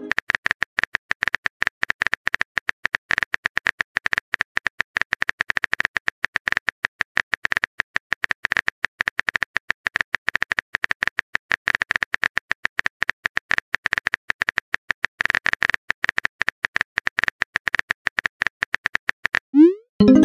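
Rapid, unbroken keyboard-tap clicks from a texting app's typing sound effect. Near the end they stop and a short rising bloop marks the message being sent.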